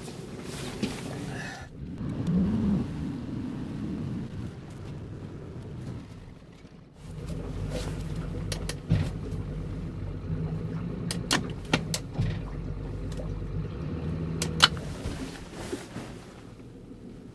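Boat motor running steadily, growing louder about seven seconds in, with several sharp knocks over its hum.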